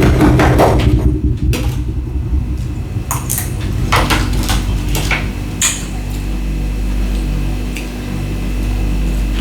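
Ice being handled and eaten: a dense crunching scrape in the first second, then a handful of separate sharp clicks and cracks of ice. A steady low hum runs underneath.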